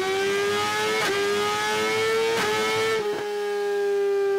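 Suzuki GSX-R1000R inline-four engine running at high revs on a dyno through an Akrapovič race exhaust, its pitch climbing slowly. The pitch is broken by three brief sharp cracks with a short dip at about one, two and a half and three seconds; it then holds and begins to fall as the engine comes off the throttle near the end.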